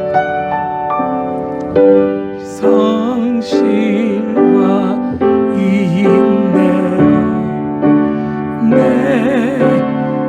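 Music: slow piano accompaniment with a voice singing a hymn with vibrato; the singing comes in a few seconds in and continues in phrases over the piano.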